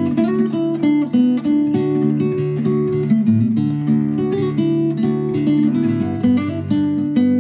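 Background music played on acoustic guitar, a steady run of plucked and strummed notes.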